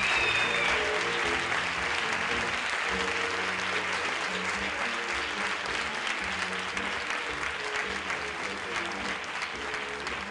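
Audience applauding, a dense steady clapping that slowly fades, with soft music underneath.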